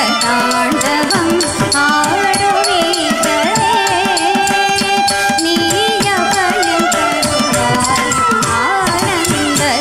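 Carnatic music for a Bharatanatyam varnam: a melody line over steady drum strokes. The dancers' ankle bells jingle with their footwork.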